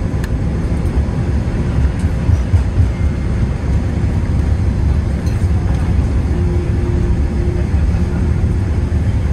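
Cabin noise inside a Boeing 787-9 rolling on the ground after landing: a steady low rumble from the wheels on the pavement and the engines, heard through the cabin.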